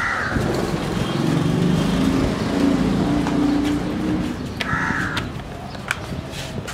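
A motor vehicle's engine passes along the street, rising in pitch as it speeds up. A crow caws once at the start and again near the end, and there are a couple of sharp clicks.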